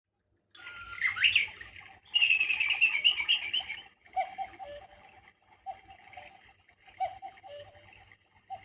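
Battery quartz mini cuckoo clock playing its recorded birdsong. Busy chirping and twittering is loudest in the first few seconds, and a two-note cuckoo call, dropping in pitch, repeats several times.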